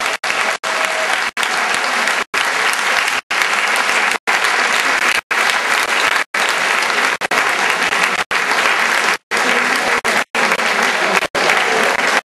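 Audience applauding steadily. The recording is broken by very short dropouts about once a second.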